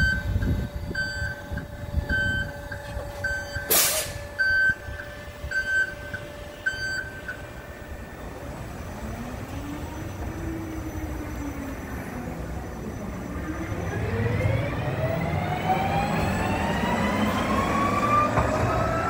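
SamTrans battery-electric bus pulling away: about seven evenly spaced warning beeps, roughly one a second, with a short sharp hiss about four seconds in, then the electric drive's whine, which rises and dips once and then climbs steadily in pitch as the bus accelerates.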